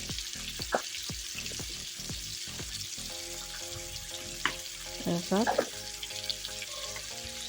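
Fish frying in hot oil in a pan: a steady sizzle with scattered sharp pops and clicks. Faint background music joins about three seconds in.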